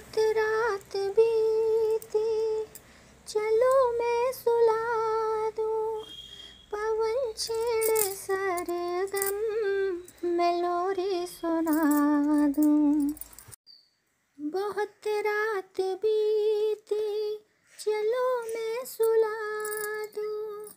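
A high voice singing a tune with held, wavering notes; it stops briefly about two-thirds of the way through, then goes on.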